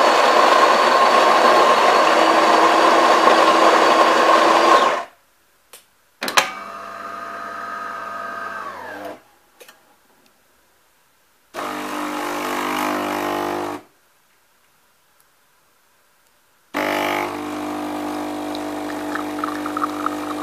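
DeLonghi Magnifica bean-to-cup espresso machine brewing a coffee. Its grinder runs loudly for about five seconds; after a click the brew-unit motor runs for about three seconds, slowing as it stops. The water pump then hums briefly for about two seconds, pauses as a pre-infusion, and starts again near the end with a steady hum as the coffee pours.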